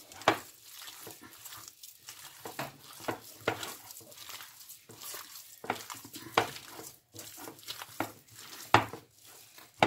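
Hands kneading a wet paste of ground beef, chorizo, egg and milk-soaked bread in a glass bowl: irregular soft squelches and slaps, a few of them louder.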